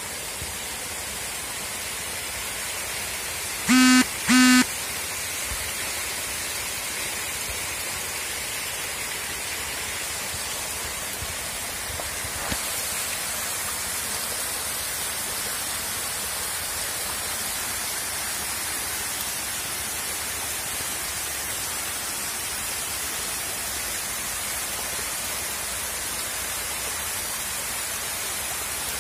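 Steady rushing hiss of water jetting into a shallow tank crowded with hybrid magur catfish. About four seconds in, two short, loud pitched honks sound one after the other.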